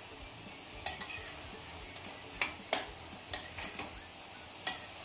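Stir-frying vegetables in sauce on high flame: a cooking utensil knocking and scraping against the pan about six times, over a faint steady sizzle.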